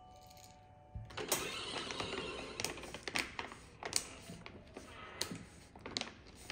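A stiff paper coffee bag crinkling and rustling as it is picked up and handled, with sharp crackles every second or so. There is a soft thump about a second in.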